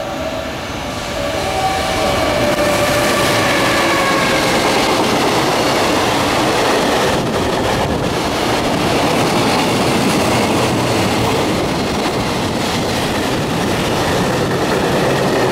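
An EF210 electric locomotive and its long container freight train pass at speed, a loud, steady rumble of steel wheels on the rails. A faint whine drifts slightly down in pitch over the first few seconds as the locomotive goes by.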